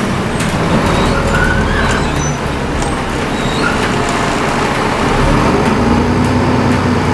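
Dennis Trident II double-decker bus's diesel engine running steadily under way, with road noise and faint high turbo whistling tones now and then.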